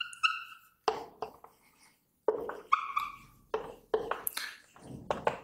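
Dry-erase marker writing on a whiteboard: a run of short scratchy strokes. Two of them squeak, one at the start and one about three seconds in.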